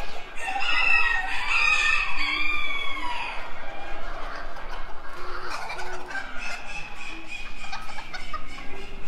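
A rooster crowing, one long crow from about half a second in to about three seconds, followed by further shorter chicken calls and clucking.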